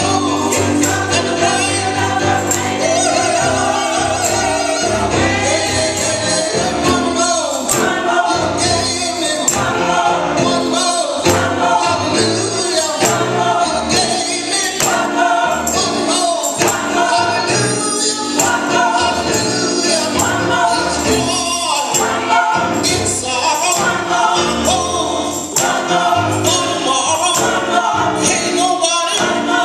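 Women's gospel choir singing, with a tambourine keeping a steady beat.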